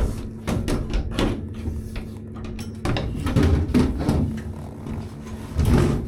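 A run of irregular knocks and clatter, several sharp ones, over a steady low hum.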